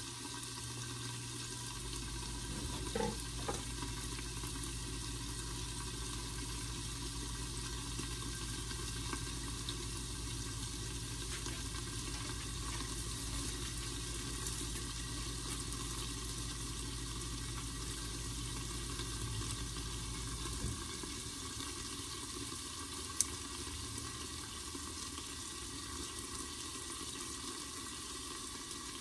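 Green beans sizzling in a glass-lidded skillet on the stove, a steady hiss of frying and steam. A low hum underneath stops about two-thirds of the way through, and a few light clicks come early on.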